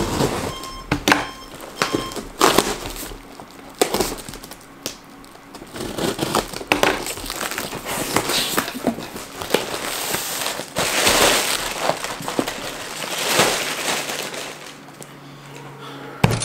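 Unpacking a cardboard box: tape and plastic wrap being cut and torn, cardboard flaps knocking, and plastic air-cushion packing rustling and crinkling as it is pulled out, with scattered sharp knocks and clicks throughout.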